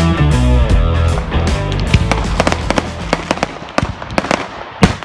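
Rock music fades out over the first second or two and gives way to fireworks going off: a run of sharp cracks and pops, irregularly spaced.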